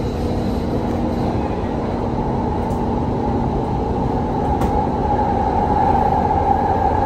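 Doha Metro train running between stations, heard from inside the carriage: a steady rumble with a hum that grows louder near the end.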